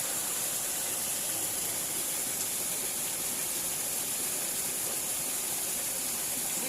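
Steady rush of water flowing in a small ditch: an even, unbroken hiss.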